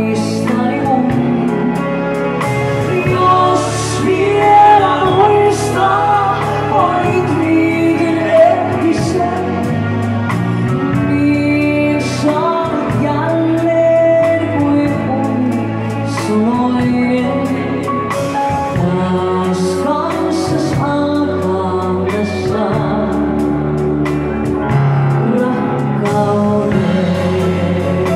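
Live band playing a song: a woman singing over drum kit, electric guitars and keyboard, with cymbal crashes now and then.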